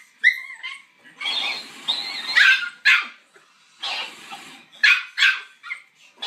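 Puppy barking in short, high yaps, about eight of them with pauses in between.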